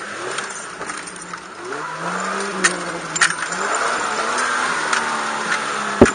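Engine of an off-road competition 4x4 heard from inside the cab, pulling harder about two seconds in, rising in pitch and loudness, then running strong. Sharp knocks and clatters from the cab as the vehicle bounces over the rough dirt, twice in the middle and once near the end.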